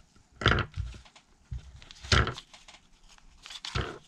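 Handling noises at a workbench: three short crinkling, scraping bursts about a second and a half apart, with fainter rustles between.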